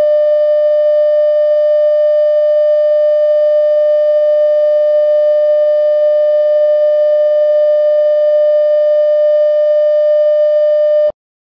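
Emergency alert tone: one loud, steady electronic tone at a single pitch with overtones, held without change and then cutting off abruptly near the end.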